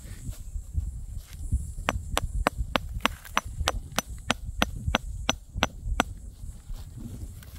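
A quick, even run of sharp clicks, about three a second, for about four seconds, over a low rumble of wind on the microphone.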